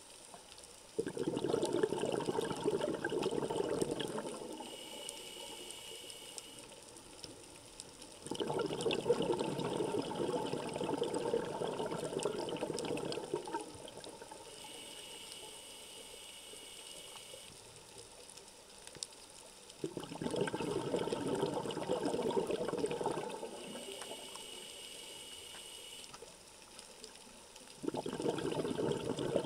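A scuba diver breathing through a regulator underwater in slow, regular cycles. Each breath in is a short, quieter hiss from the demand valve, and each breath out is a few seconds of bubbling from the exhaust, four exhalations in all.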